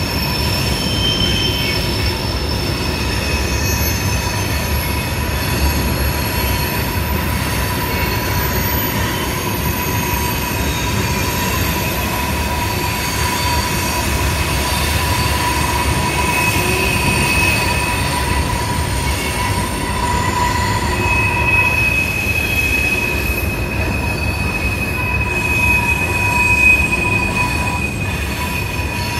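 CSX freight train's tank cars and trash-container cars rolling past: a steady rumble of steel wheels on the rails, with high, held wheel squeals that come and go.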